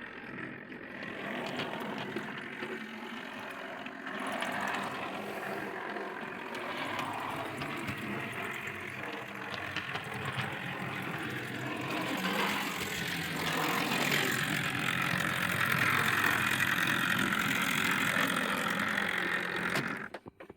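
O gauge model locomotive running along the track, its electric motor and gears whirring. It gets louder in the second half and stops suddenly near the end.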